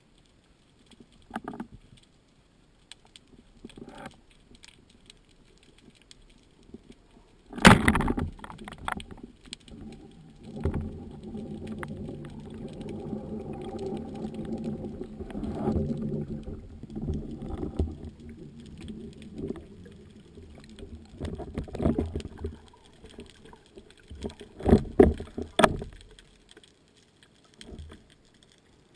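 Underwater sounds of a spearfishing dive: scattered faint clicks, one loud sharp knock about eight seconds in, then a rumbling rush of water lasting about twelve seconds, and a cluster of sharp knocks near the end as a speared fish is handled on the shaft.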